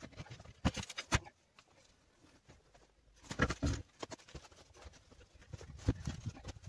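Tyre lever knocking and scraping against the steel wheel rim while a tractor tyre's bead is levered onto the rim: irregular knocks, two in the first second or so, a cluster about three and a half seconds in, and another near the end.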